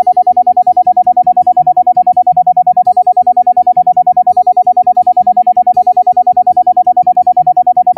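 Sound-therapy track: a loud, steady mid-pitched tone pulsing rapidly and evenly, over soft keyboard music whose held low notes change every second or so.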